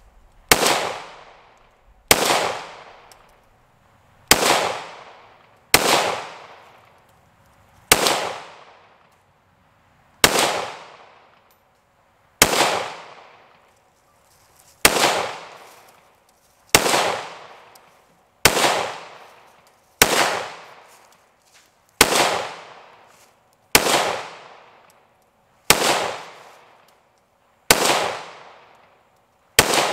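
Slow, deliberate single shots from a 5.7×28mm semi-automatic pistol, about one every two seconds, sixteen in all, each sharp crack trailing off in an echo.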